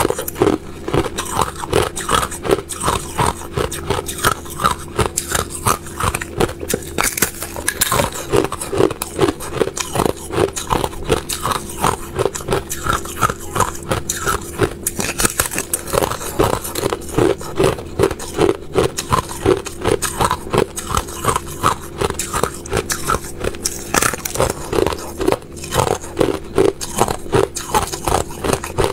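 Thin sheets of clear ice being bitten and chewed close to the microphone: steady, rapid crunching and crackling, about four crunches a second.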